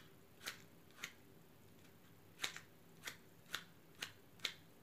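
A wooden match scraped again and again against the striker strip of a matchbox, about seven short scratches a fraction of a second to a second apart, the match failing to light.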